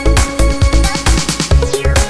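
Electronic dance background music with a steady beat, synth tones and heavy bass.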